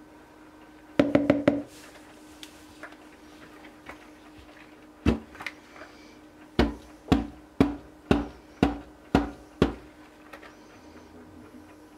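Silicone spatula knocked against the rim of a plastic mixing bowl to shake off soap batter. There are four quick knocks about a second in and one more near five seconds, then a run of seven even knocks at about two a second.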